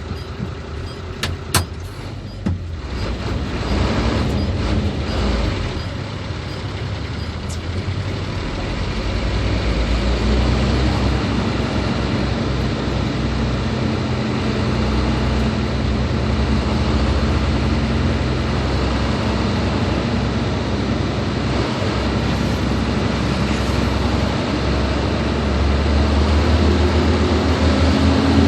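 Hino 500 truck's diesel engine running under way, growing louder about ten seconds in, its pitch rising near the end. A few sharp clicks sound a second or two in.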